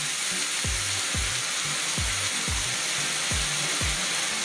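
Salmon fillets and freshly added water sizzling steadily in a hot frying pan. Background music with a regular drum beat plays underneath.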